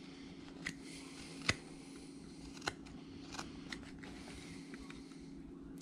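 Carving knife paring chips from a wooden dog figure: a handful of short, sharp snicks at uneven intervals, over a faint steady hum.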